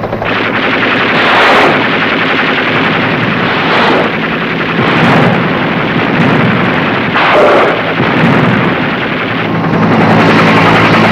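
Machine-gun fire and rocket blasts from a UH-1 Huey helicopter gunship attacking a ground target, several loud blasts standing out over continuous firing. The helicopter's steady low hum runs beneath, plainest near the end.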